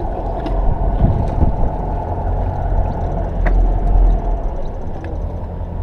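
Steady low rumble on board a charter fishing boat, the sound of its engine mixed with wind, with a few faint ticks.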